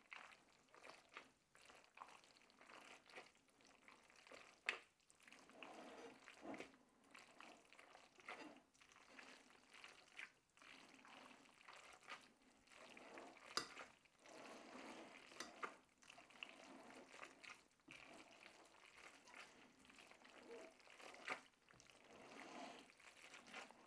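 Faint wet squelching of spaghetti being tossed through a thick cream sauce in a glass bowl, with now and then a light tick of the metal utensil against the glass.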